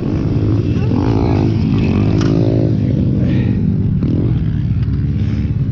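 Pit bike engine running, with the revs rising about two seconds in as the bike pulls away over the dirt track.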